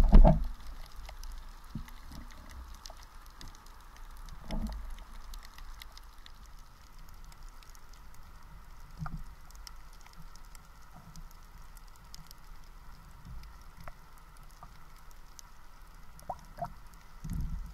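Underwater ambience picked up by an action camera in its waterproof housing: a faint, muffled hush with scattered light ticks. A few dull thumps come through as the diver moves in the water, the loudest near the end.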